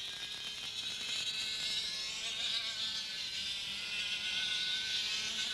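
Two-stroke racing kart engine buzzing at high revs, its pitch rising slightly and then holding steady.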